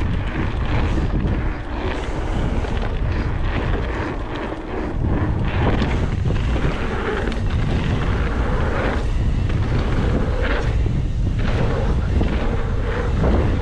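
Wind buffeting the microphone of a handlebar-mounted action camera over the rumble of a Specialized Stumpjumper mountain bike's tyres on a dirt jump line, with frequent knocks and rattles from the bike over the bumps.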